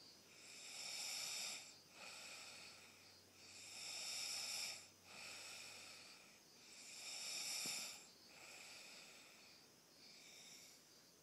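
Snoring in slow, regular breaths about three seconds apart: three louder, hissing breaths, each followed by a softer one, and a weaker pair near the end.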